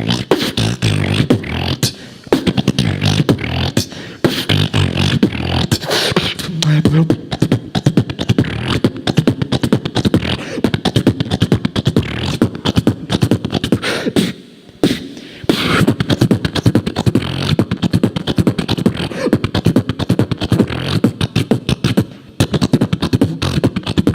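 Human beatboxing: a fast run of mouth-made percussion of kicks, snares and clicks, with a brief pause about fourteen seconds in.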